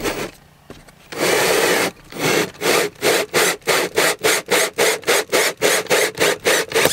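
Cordless drill driving a hole saw through a wooden panel: a steady rasping cut for about a second, then the cut goes on in regular pulses, about four a second.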